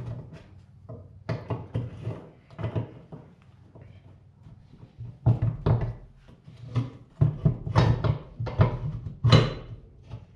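Irregular knocks and clunks of steel planter row-marker parts being handled and fitted on a wooden workbench, sparse at first and coming thick and loud in the second half.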